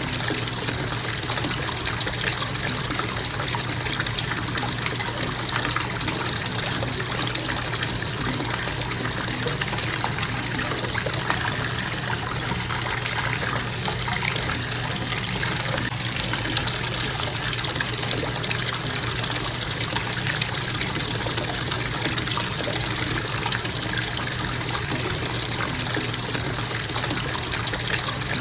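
Water running steadily from a bathtub faucet, a constant even splashing flow with no change.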